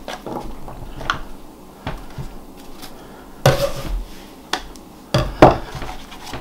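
Metal bench scraper scraping apple chunks across a wooden table and tipping them into a foil loaf pan: a run of scrapes and sharp knocks, the loudest about three and a half seconds in and two more about five seconds in.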